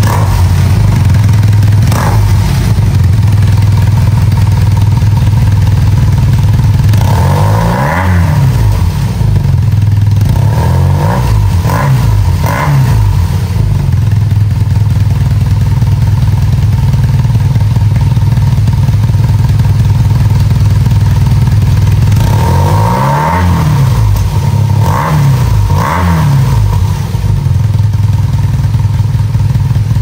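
BMW R nineT's boxer twin running through a Remus Mesh Double stainless-steel twin silencer, idling steadily. Two sets of short throttle blips, each revving up and dropping straight back to idle: one long rev and two quick ones about a third of the way in, and three more past the three-quarter mark.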